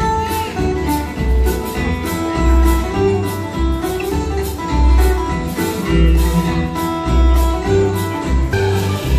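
Instrumental show music with a deep beat about once a second under held melodic notes.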